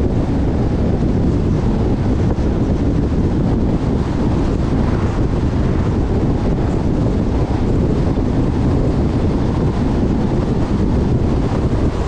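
Steady wind and road noise of a car driving at road speed: a dense low rumble with wind buffeting the microphone.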